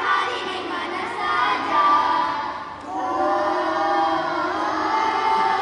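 A group of children singing a short cheer song together in unison, with longer held notes in the second half.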